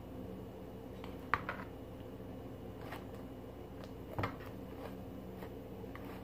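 Sticky glue-and-Tide slime being kneaded by hand, giving a few faint, short wet clicks and squelches, the sharpest about a second in and another just after four seconds, over a steady low hum.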